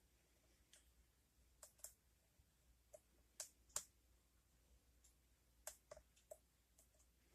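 Small metallic clicks from a lock pick working in a Brinks padlock's keyway while the lock is being picked. The clicks come singly and irregularly, about a dozen in all, with the loudest pair a little past halfway.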